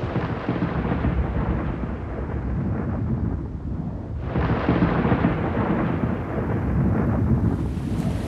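Thunder rumbling, with a second clap breaking about four seconds in and rolling on. Rain begins to hiss in near the end.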